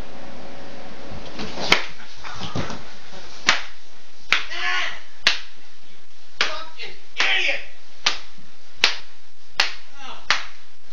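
Blows landing on a person's body: a series of about ten sharp smacks, roughly one a second, with short voice sounds between some of them.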